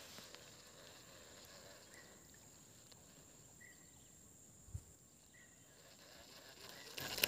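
Faint outdoor ambience: a steady high thin tone and a short faint chirp repeating about every one and a half seconds, with a soft low thump about two thirds through. Louder clicking and rustling noise starts right at the end.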